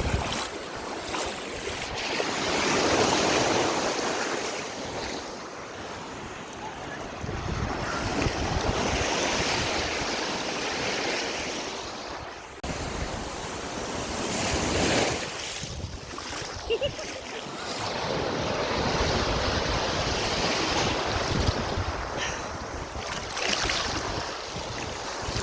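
Ocean surf: waves washing in and receding in slow swells several seconds apart, with wind buffeting the microphone.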